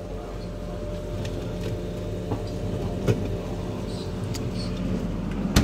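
A steady low mechanical hum, with a few light clicks and a sharp click near the end.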